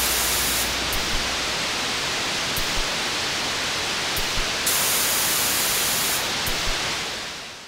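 Steady hiss like static or rushing air, with a few faint ticks; its highest part cuts in and out a few times, and the hiss fades down near the end.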